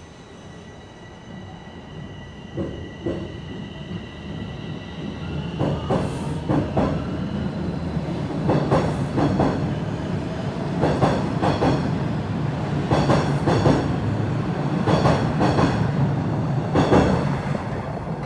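Bombardier Toronto Rocket subway train running past the platform. A low rumble builds up over the first several seconds, with a thin high whine at the start. The wheels clack in pairs about every two seconds as the cars go by.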